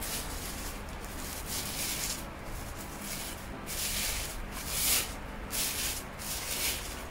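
Rustling of the white protective wrapping as it is pulled and slid off a telescope tube, in several bursts, the loudest about five seconds in.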